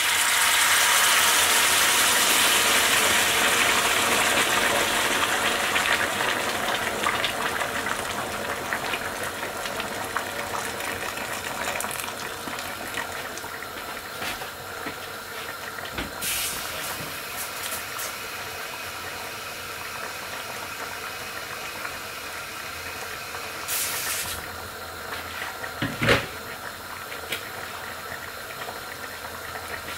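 Boiling water poured from a kettle into a hot pot of fried chicken and onions, hissing loudly at first as it hits the hot pan, then fading over several seconds to a quieter steady bubbling. A few short knocks come later on.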